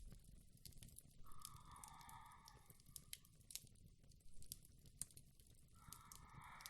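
Faint, slow breathing of a woman drifting off to sleep, one soft breath about every four seconds, over quiet crackling from a fire.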